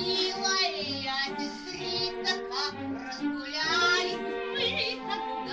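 A high voice singing a melody over recorded instrumental backing with a steady low beat.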